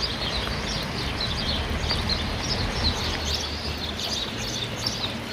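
Birds chirping, quick high-pitched chirps repeated several times a second, over a steady low rumble.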